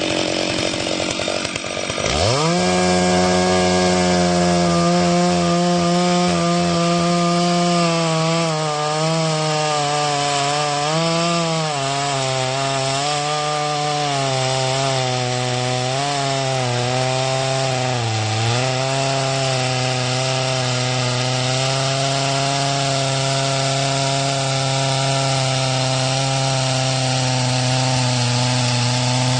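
Stihl 064 two-stroke chainsaw revving up sharply about two seconds in and cutting into a eucalyptus (Sydney blue gum) trunk. The engine pitch wavers and dips several times as the chain bites, then holds steady at a lower pitch under cutting load.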